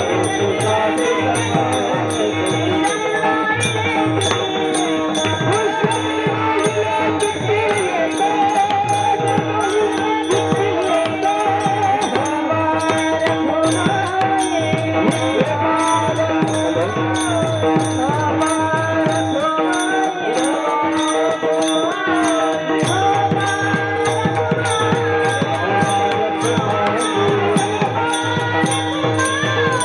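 Kirtan devotional music: small hand cymbals (taal) struck in a steady beat about twice a second over a drum rhythm, with a sustained drone and a wavering melody running on top.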